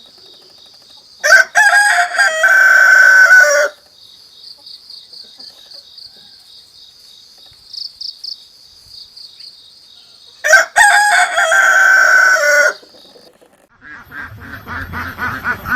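Rooster crowing twice, each crow about two seconds long and about nine seconds apart, over a steady, high, pulsing trill. Near the end a different run of rapid calls begins, with ducks quacking.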